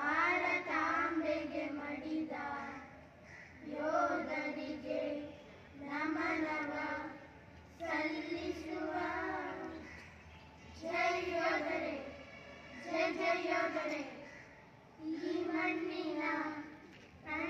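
A small group of children singing a group song together, with no instruments, in phrases of about two seconds with short breaks between them.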